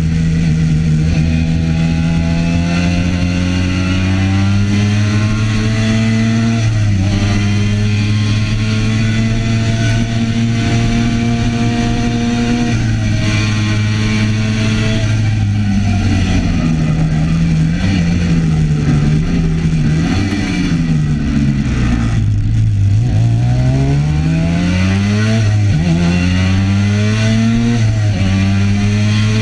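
Classic racing motorcycle's engine at full throttle, heard from on the bike: the pitch climbs and drops back at upshifts about 7 and 13 seconds in, wavers and falls as the rider slows for a bend past the middle, then climbs again with two more upshifts near the end. A steady rush of wind runs underneath.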